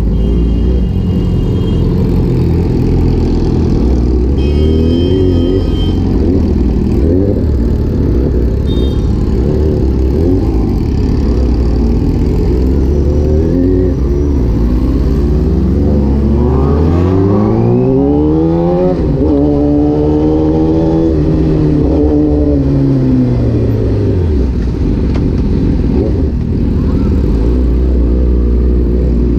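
Kawasaki ZX-10R's inline-four engine running at low revs, then rising steadily in pitch as the bike accelerates hard about halfway through, and falling back as the throttle eases off.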